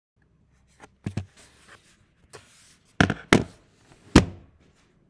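Handling noise: a series of knocks and bumps close to the microphone. There are a couple of small taps about a second in, then three loud thumps between three and four and a half seconds in.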